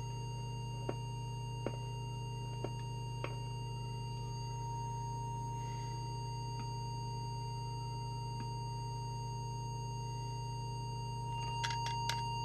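A steady, pure test tone from an audio oscillator, sounding without a break over a low mains-like hum, as used when setting up a CB radio transmitter. A few faint clicks come in the first few seconds and a short cluster near the end.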